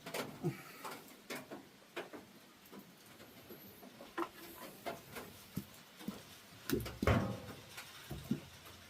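Scattered light clicks and knocks of things being handled, with a short pitched call about seven seconds in.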